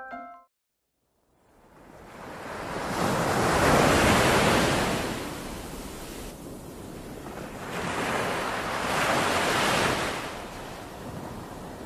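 Sea surf washing over shore rocks, swelling up twice, about four seconds in and again near nine seconds, with wind on the microphone.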